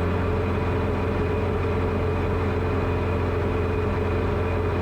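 Light aircraft's piston engine and propeller running steadily in flight, heard as an even low drone inside the cockpit.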